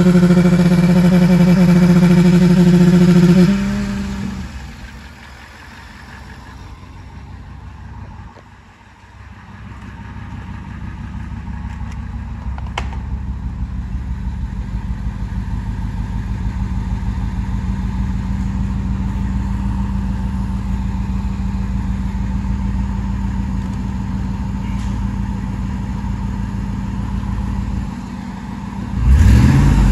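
Ford F-150 SVT Lightning's 5.4 L supercharged V8 running: held at raised revs with a steady note for the first few seconds, then dropping back to a steady idle, and revved again near the end with a rising pitch.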